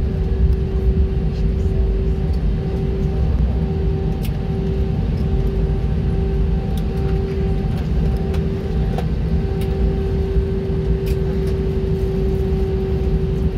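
Steady cabin noise of an Airbus A320 taxiing after landing: a low rumble with a constant hum from the engines and aircraft systems, and a few faint ticks.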